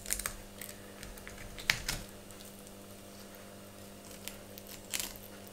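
Scattered small clicks and taps of a knife blade working along a raw herring's backbone and touching a plastic cutting board, a few sharper ones about two seconds in and near the end, over a steady low hum.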